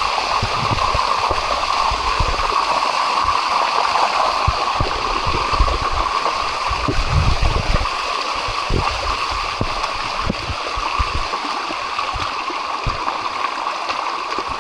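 Waterfall water rushing and gurgling steadily over the rocks, with low thuds and rumbles in the first half.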